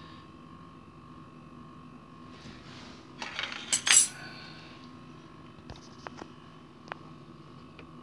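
Plastic base-cover clips of a dishwasher clicking and rattling as they are pried and pushed, with a burst of clatter about three to four seconds in and a few single clicks after it, over a faint steady hum.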